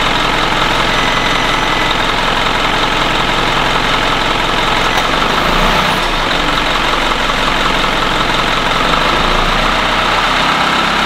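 Isuzu NQR's 5.2-litre 4HK1 diesel engine idling steadily at about 850 rpm, as a DPF regeneration is being started.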